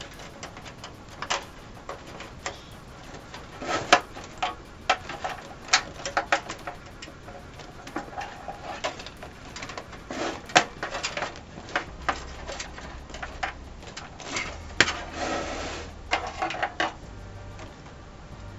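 Irregular clicks, knocks and short scrapes of computer hardware being handled, as a floppy drive is fitted into the PC case and its cables connected.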